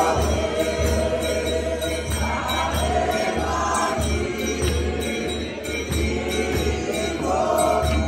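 Church congregation singing a hymn together over live accompaniment, with a steady low beat pulsing underneath.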